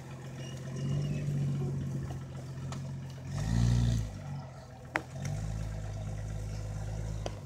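Lifted 1997 Jeep Grand Cherokee's engine pulling at low speed as the Jeep crawls up a rock face, with a short rev about three and a half seconds in and a single sharp knock about a second later.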